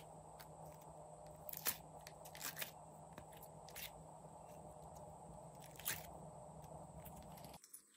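Glossy slime being stretched and squished by hand, giving a few sticky clicks and pops over a faint steady hum. The sound drops out briefly near the end.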